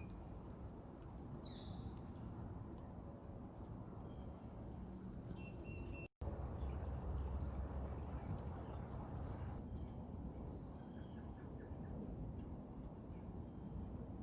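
Wild songbirds chirping and calling in short, scattered notes over a steady low outdoor rumble. The sound cuts out for an instant about six seconds in.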